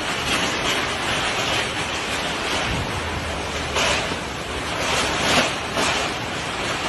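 Heavy storm rain pouring down in strong wind: a steady rush that swells in gusts a few times in the second half.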